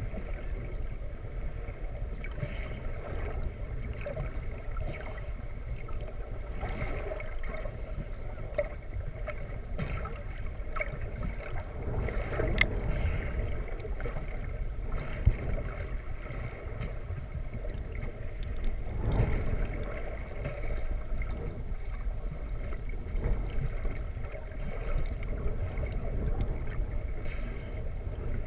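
Muffled underwater ambience picked up by a camera held below the surface: a steady low rumble of moving water, with faint scattered ticks and a couple of brief swells.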